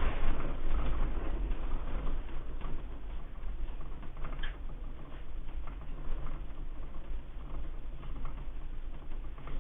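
Household objects rattling and creaking in a house shaken by an earthquake, over a low rumble. The rattling is strongest at first and slowly dies down as the shaking eases.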